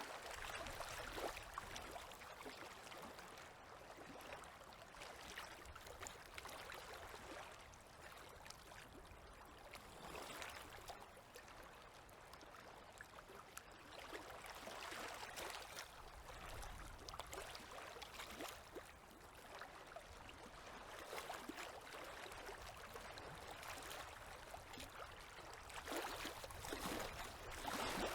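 Small river waves lapping softly, swelling and fading every several seconds.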